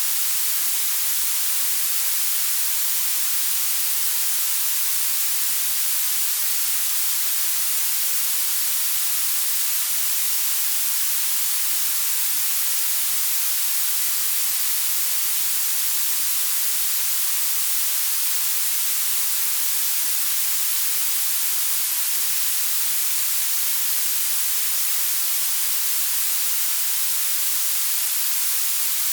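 Synthetic blue noise: a steady, unchanging hiss whose energy rises toward the highest pitches, with almost nothing in the bass.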